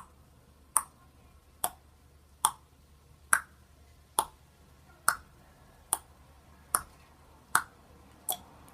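Sharp clicks or snaps repeating at an even beat, a little more than once a second, eleven in all.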